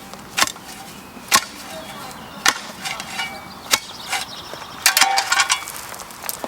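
Sharp knocks and clicks of a hand tool chopping into gravelly soil, about one a second, with a quick cluster of them about five seconds in.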